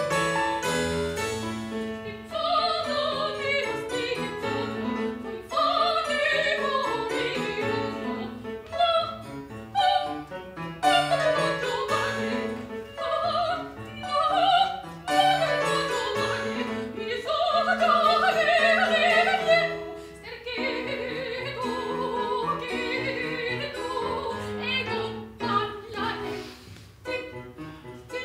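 Operatic soprano singing an aria in Italian to keyboard accompaniment. Her long held notes waver with vibrato, the longest about two-thirds of the way through.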